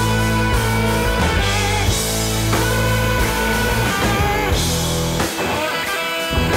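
Background rock music with guitar; the bass drops out about five seconds in.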